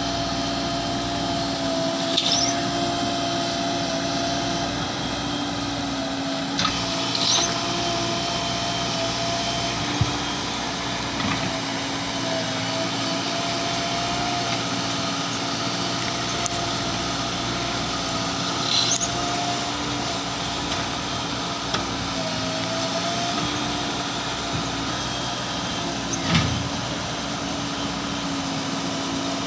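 JCB 3DX Plus backhoe loader's diesel engine running steadily at a constant speed while the machine works. A few short knocks and brief high squeaks come through, with the loudest knock near the end.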